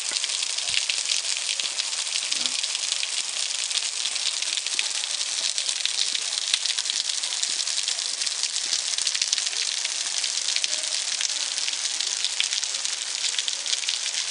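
Spring water seeping out of a sandstone cliff and falling as a steady, dense patter of drops onto wet rock, sounding like rain.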